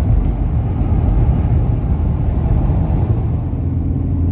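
Pickup truck driving at highway speed, heard from inside the cab: a steady low engine drone under tyre and road noise.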